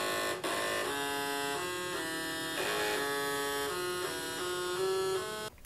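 Commodore 1541 floppy drive's head stepper motor buzzing out a tune, vibrated back and forth by a music program running on the drive's own processor. The notes change every quarter to half second, one note at a time, and the tune stops abruptly near the end.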